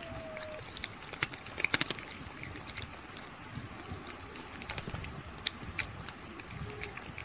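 Kitten licking and chewing at a chocobar ice cream on its stick: scattered wet clicks and smacks, with a loud cluster about a second and a half in and two sharp clicks later on.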